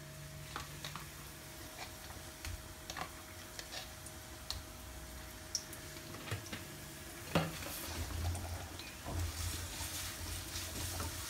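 Sliced onions and garlic paste sizzling faintly in oil in a wok, with scattered clicks of a metal spoon against the pan. The sizzle thickens and stirring starts near the end.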